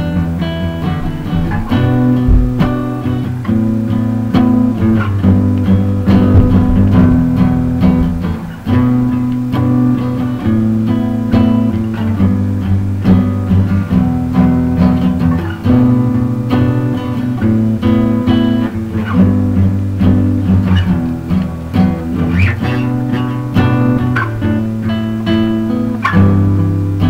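Instrumental band music: plucked and strummed guitars playing chords over a low bass line, with no singing.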